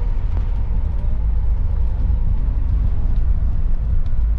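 Steady low rumble of a moving Mercedes-Benz OC500RF coach: engine and road noise at an even pace.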